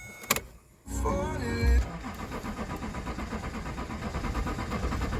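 Vectra 3.0 CDTi V6 diesel engine turning over on the starter: a click, then a steady, evenly pulsing cranking without catching. The engine won't start after cutting out.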